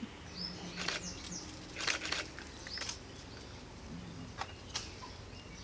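Birds chirping: scattered short, high chirps and sharp clicks, a few at a time, spread through a few seconds.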